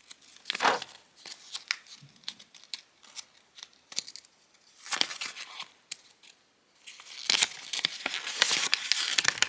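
A printed paper insert from a toy's packaging being handled and unfolded: scattered crisp rustles and clicks, growing busier about seven seconds in.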